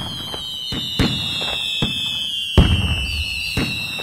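Fireworks going off: a long high whistle falling slowly in pitch, with sharp bangs and crackles about every half second, the loudest about two and a half seconds in.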